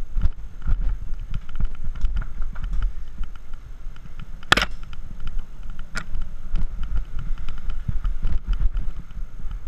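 Road bike rolling along a paved path, heard from a handlebar-mounted camera: a steady low rumble of wind and road vibration with a run of small rattling clicks, and one sharp knock about four and a half seconds in, with a lighter one a second and a half later.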